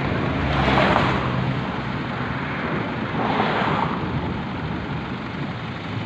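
Cars passing by on the road, two swells of tyre and engine rush that rise and fade, one about a second in and another about three seconds in.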